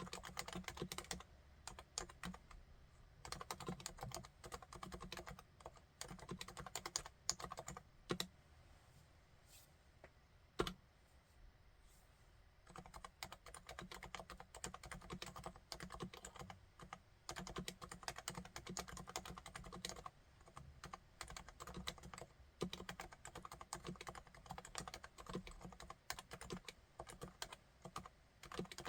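Continuous typing on a Realforce RC1 75% keyboard with 45 g silenced Topre electrostatic capacitive switches: rapid, soft keystrokes. The typing pauses for about four seconds midway, broken by one louder single keystroke.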